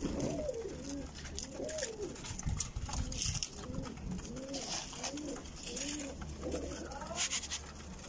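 A flock of domestic pigeons cooing: repeated low coos that rise and fall, overlapping one after another, with scattered light clicks.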